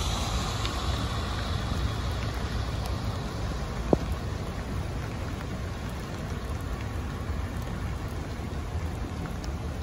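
Steady rain falling, a continuous hiss with a low rumble underneath, and one sharp tap about four seconds in.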